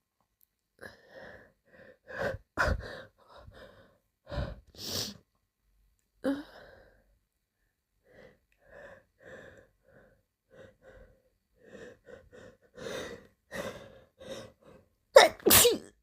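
A person's sneezing fit: several sneezes with short catching breaths and gasps between them, a run of small quick breaths building up in the middle, and the loudest sneeze near the end.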